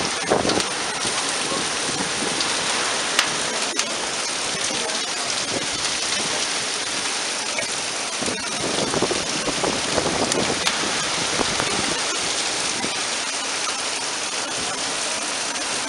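Heavy wind-driven rain pouring down and splashing on the ground during a severe thunderstorm microburst, a dense steady hiss that swells slightly at times. A couple of sharp ticks sound about three and four seconds in.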